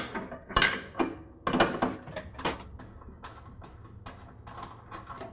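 Wrench working the nut off a lawn tractor's transmission pulley, which a screwdriver through the pulley holds still. Several sharp clanks in the first two and a half seconds, then fainter ticking.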